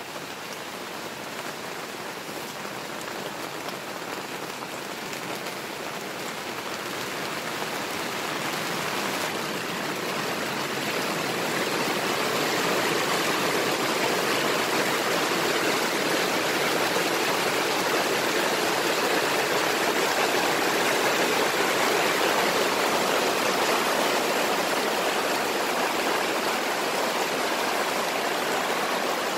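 Steady, even rushing noise that grows louder over the first twelve seconds or so and then holds level.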